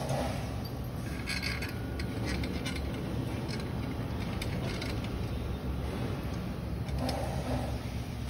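A steady low rumble, with light metallic clinks and scrapes from the steel tubes of a swing-chair frame being handled and fitted together, mostly about a second in.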